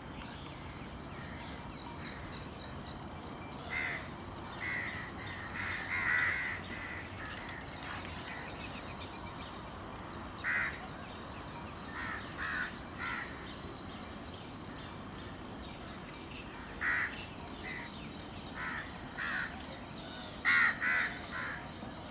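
Short harsh bird calls, some single and some in quick runs of two or three, over a steady high hiss. The loudest come near the end.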